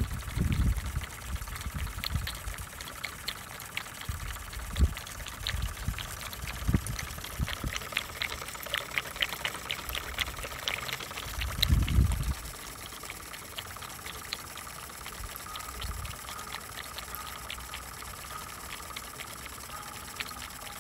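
A thin stream of water splashing and trickling steadily from the spout of a small belt-driven model water pump into a brass bowl. A few low thuds come through, the loudest about twelve seconds in.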